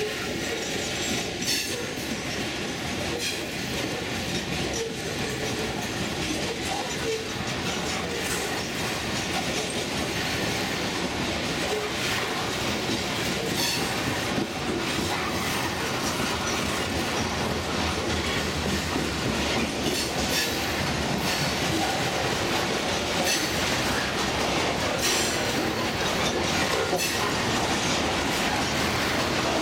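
Coal hopper cars of a freight train rolling past at steady speed: a continuous rumble of steel wheels on the rails, broken by irregular sharp clicks and clacks.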